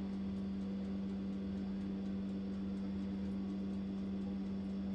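A steady low hum, one constant tone that holds unchanged throughout, with no other sound standing out.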